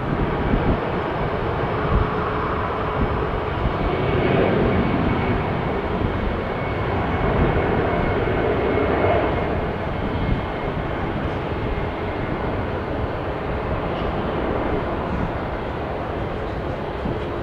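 Rolls-Royce Trent XWB turbofans of an Airbus A350-900 running at low power as the airliner taxis: a steady rumble and hiss with a faint high whine.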